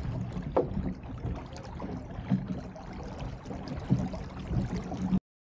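Wind buffeting the microphone and water splashing along the hull of a Solo sailing dinghy under way, with a few short thumps. The sound cuts off abruptly about five seconds in.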